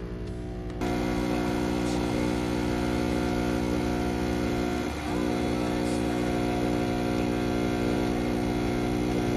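Breville Barista Pro espresso machine's pump humming steadily while pulling a manual espresso shot. The hum steps up in loudness about a second in and dips briefly about halfway through.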